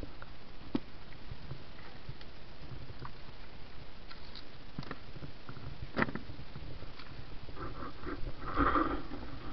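Handling noise inside a small wooden boat: a few sharp knocks over a low steady background noise, with a louder, brief clatter near the end.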